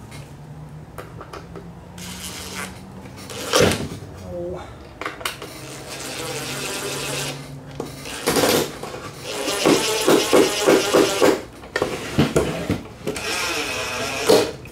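Cordless driver driving screws into cedar birdhouse boards in several separate runs, with a steady motor whine in the first half and a rapid pulsing run near the middle, the screws pulling the boards together.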